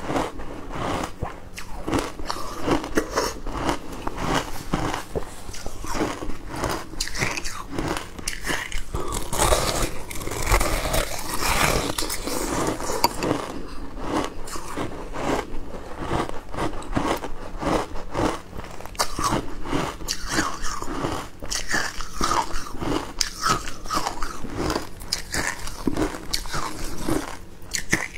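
Close-up crunching and chewing of packed shaved ice in the mouth: a dense, continuous run of rapid crunches.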